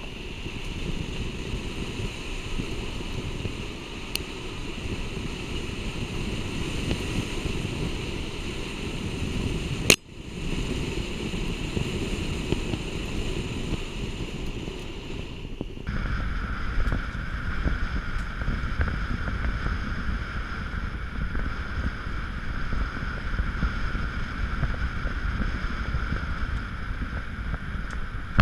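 Wind rushing over a microphone and low tyre and drivetrain rumble from a Land Rover Discovery driving a dirt track. There is one sharp click about a third of the way in. A little past halfway the steady tone changes abruptly and sits lower.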